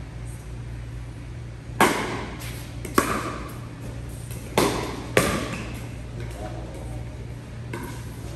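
Pickleball rally: the plastic ball popping off paddles four times at uneven intervals, each pop echoing in a large hall.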